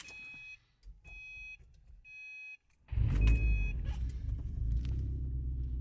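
A car's warning chime beeps four times, about once a second, then the engine starts about three seconds in and runs with a steady low rumble.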